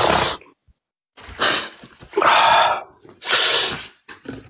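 A person breathing heavily close to the microphone: four loud, breathy gasps with short silences between them.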